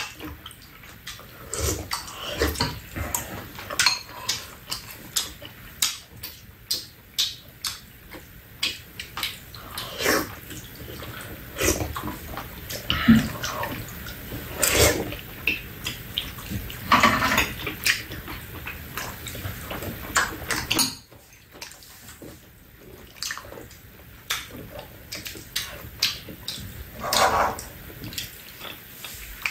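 People eating with metal spoons: slurping soup, chewing with their mouths, and spoons clicking against bowls in a steady run of short sounds.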